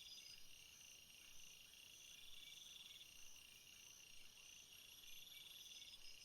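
Faint chorus of night insects, crickets among them, chirping and trilling at once in several high-pitched layers.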